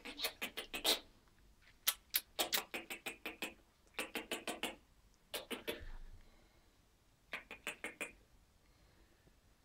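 Five short runs of quick clicking, about seven clicks a second, from a mother cat and her kittens huddled together.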